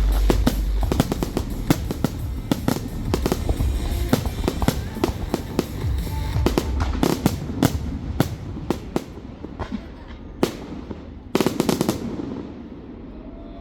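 Fireworks going off: dense rapid crackles and bangs over deep booms, thinning out after about seven seconds, with one last burst of crackling about eleven seconds in before dying away. Music plays faintly underneath.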